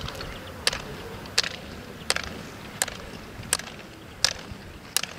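Ski-pole tips striking asphalt in a steady rhythm, one sharp click about every 0.7 seconds, as a roller skier skates with poles, over the low rolling noise of the roller-ski wheels.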